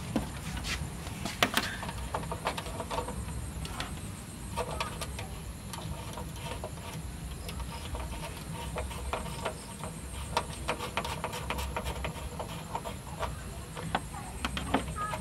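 Scattered small clicks and taps of bare speaker wire being handled and fitted into the speaker terminals on the back of an amplifier, over a steady low background rumble.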